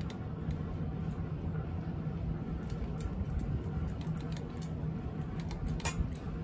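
A cat crunching dry kibble from a metal dish: a scatter of small sharp crunches and clicks, thickest in the second half, over a steady low hum.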